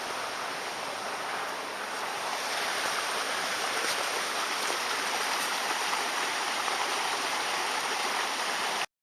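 Steady rush of flowing water, which stops abruptly near the end.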